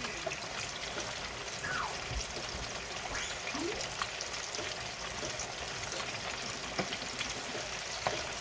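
Battered chicken wings frying in a deep fryer of very hot oil: a steady sizzle with scattered crackles and pops.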